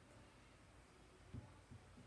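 Near silence: room tone with a faint low hum, broken by two faint short low thumps a little past halfway.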